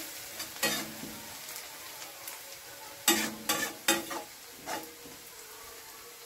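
Crushed garlic and green chillies sizzling steadily in hot mustard oil in a metal kadai, while a metal spatula scrapes and clinks against the pan as it is stirred. The scrapes come once about a second in and then in a quick run of strokes between three and five seconds in.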